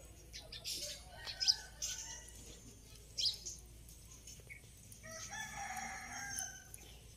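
A rooster crows once, about five seconds in, among short high chirps from small birds.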